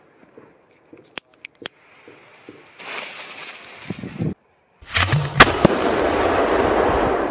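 Fuse of a large mortar-fired firework shell sputtering and then hissing loudly. About five seconds in, the firework goes off with sharp bangs, followed by sustained crackling.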